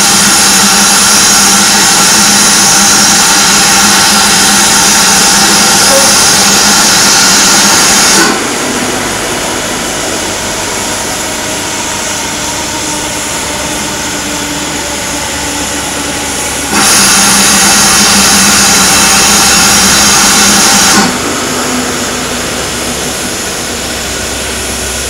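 GWR 4575-class prairie tank locomotive 5526, standing, lets off steam in a loud steady hiss that cuts off sharply about eight seconds in. It starts again just as loud about seventeen seconds in and stops sharply after about four seconds. Between the two blasts a quieter steady hiss and low hum from the engine continue.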